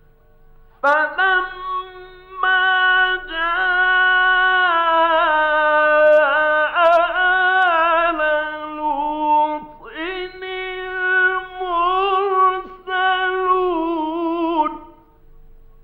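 Male Quran reciter chanting in a melodic, drawn-out style, in long ornamented phrases with a short breath about ten seconds in. A steady hum from the old 1950s radio recording runs underneath.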